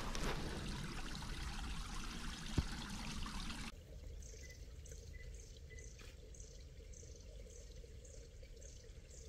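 Running water, like a small mountain stream trickling, then an abrupt cut about a third of the way in to a quieter scene. There a faint high chirp repeats about twice a second.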